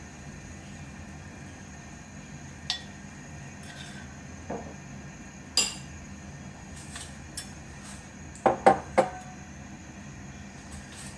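Metal spoon clinking against a glass batter bowl and a frying pan while batter is spooned out, in scattered single clinks. Near the end comes a quick run of three louder clinks.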